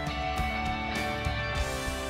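Background music with steady held notes and a light beat.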